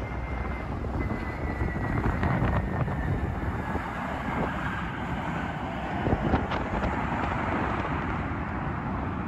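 Airbus A321 jet engines running as the airliner touches down and rolls out, a thin engine whine sliding slowly down in pitch over several seconds under a broad roar that swells about two seconds in and again around six seconds. Wind buffets the microphone with a low rumble.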